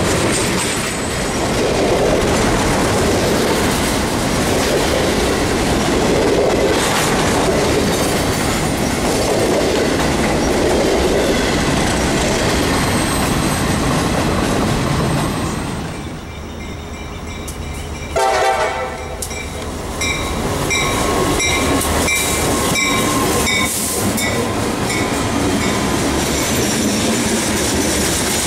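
Freight train cars rolling past with a steady rumble and wheel clatter over the rail joints. About two-thirds of the way in, a diesel locomotive's horn sounds one brief note. Then a second freight, led by diesel locomotives, rolls by with clatter and short high-pitched wheel squeals.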